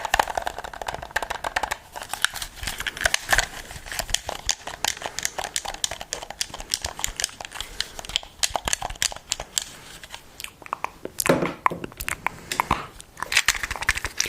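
Dense, irregular crinkling and crackling of handled material, with a heavier, fuller rustle about eleven seconds in and again shortly after.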